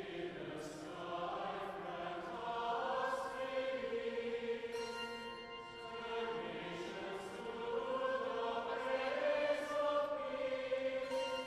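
A choir singing a slow chant, several voices holding long notes that change pitch only slowly.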